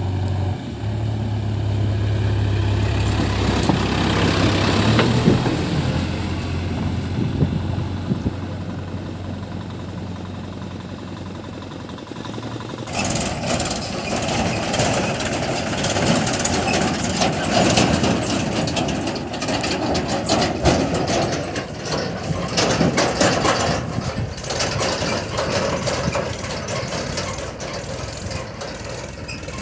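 Diesel engine of a backhoe loader or tractor running steadily and rising in level for a couple of seconds. About 13 s in the sound changes abruptly to a loud, harsh clattering and scraping noise alongside the engine.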